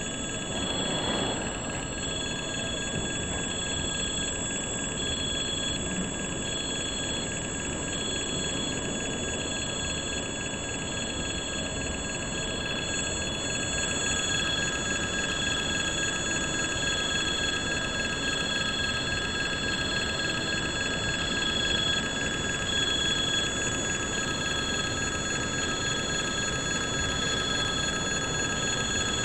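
Level-crossing warning bell ringing in an even, repeating on-off pattern while a container freight train rolls past with a steady rumble of wheels on rail.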